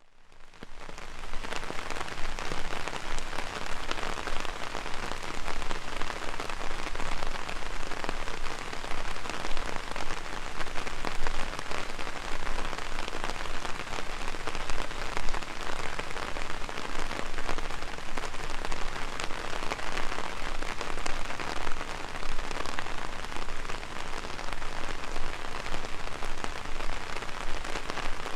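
Heavy rain drumming on an umbrella, a dense, steady patter of drops that fades in over the first second or so.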